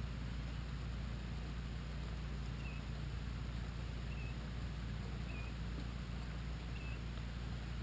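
Steady rain falling, an even hiss with a low rumble underneath. A short, faint high chirp repeats about every second and a half.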